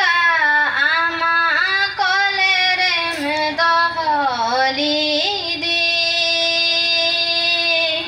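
A woman singing solo into a microphone with no accompaniment, a melody in short gliding phrases that ends on one long held note.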